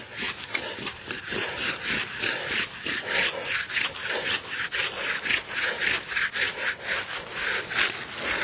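Rapid back-and-forth scrubbing on the weathered face of an old headstone, about three scraping strokes a second, rubbing off dirt so the inscription can be read.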